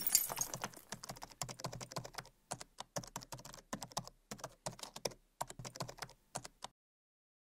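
Computer keyboard typing: rapid, irregular key clicks that stop shortly before the end.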